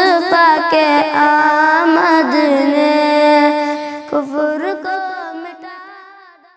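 A boy singing a naat in long, drawn-out notes that bend and waver, the voice fading out near the end.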